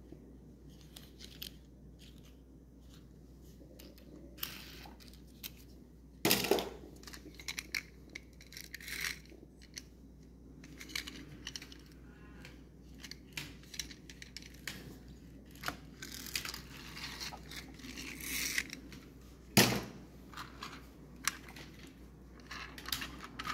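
Small toy cars being handled: scattered light clicks, taps and rubbing, with two louder knocks, one about six seconds in and one near the end.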